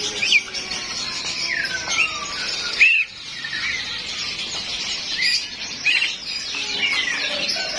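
Many caged songbirds chirping and twittering together: short, sharp whistled chirps that rise and fall, over a constant high twitter from the crowded cages.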